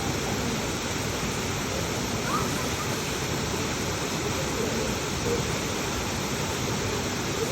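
Waterfall rushing: a steady, even roar of falling water at a constant level.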